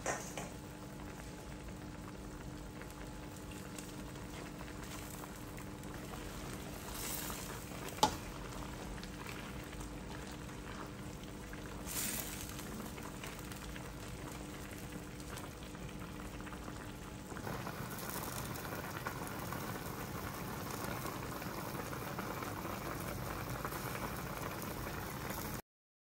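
Chicken tinola broth boiling and bubbling in a stainless steel wok, with a sharp clink about eight seconds in and a lighter one a few seconds later. The bubbling grows louder and busier about two-thirds of the way through, then cuts off just before the end.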